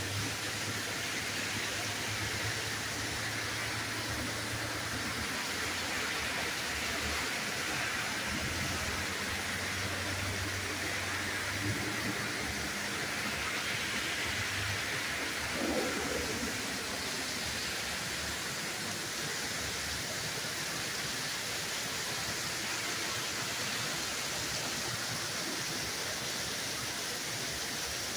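Torrential rain pouring down in a steady, unbroken hiss.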